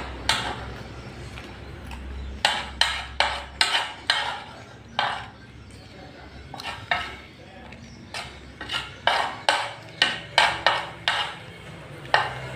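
Cutlery clinking and scraping against a plate in a quick run of sharp strokes, in two bursts with a pause between and one last strike near the end, as the last of a plate of fried rice is gathered up.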